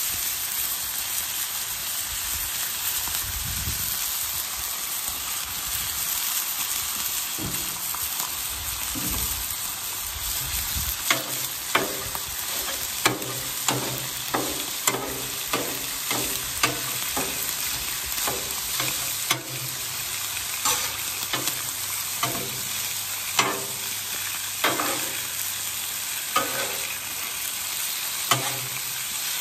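Sausage and bacon sizzling on a Blackstone griddle's flat steel top. From about a third of the way in, a metal spatula chops and scrapes ground breakfast sausage against the steel, a sharp clack about once a second.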